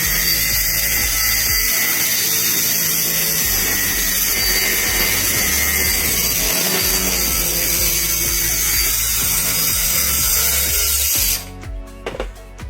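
A power tool running steadily at full loudness, cutting off suddenly near the end and leaving background music.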